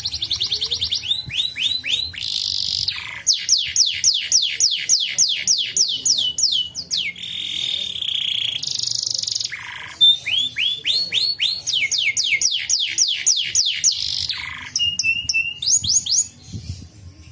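Domestic canary singing: fast series of repeated sliding whistles, each series changing to a new phrase every second or two, with a held buzzy note about halfway through.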